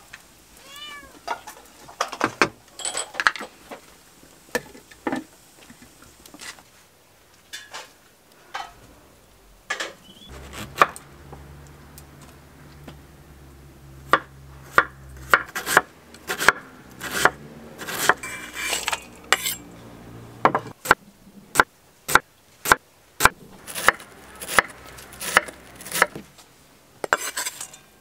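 A cat meows a couple of times near the start. Later a kitchen knife chops red cabbage on a wooden cutting board, a steady run of sharp knocks about two a second.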